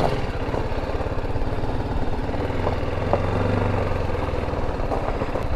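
Single-cylinder engine of a BMW G310GS motorcycle running at low revs with an even, rapid pulse as the bike rides off, heard from a camera mounted on the bike.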